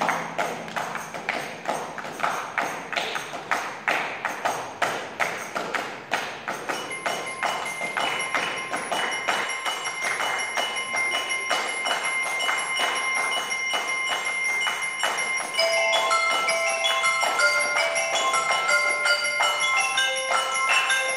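Percussion ensemble playing: a fast, steady pulse of struck notes, with sustained ringing tones joining about a third of the way in and a louder mallet-keyboard melody entering about three-quarters of the way through.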